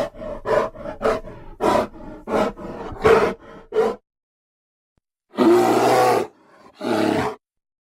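Homemade Bigfoot sound effects voiced by a person: a quick run of about eight short pitched calls, about two a second, for the first four seconds, then after a pause one long call and a shorter one.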